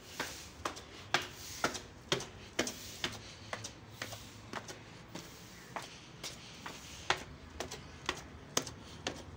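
Footsteps climbing stone stairs: sharp shoe steps, about two a second, evenly paced.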